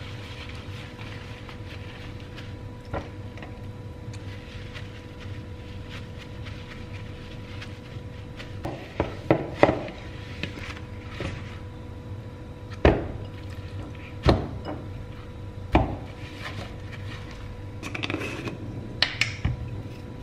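Kitchen handling sounds over a steady low hum: rustling paper towel, then several sharp knocks as raw chicken drumsticks go into a plastic mixing bowl, and small clinks from a glass salt jar near the end.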